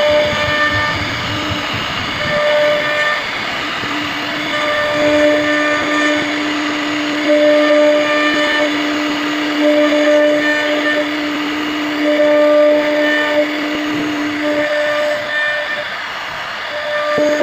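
CNC router running, a steady machine whine with a higher whine that comes and goes every second or two.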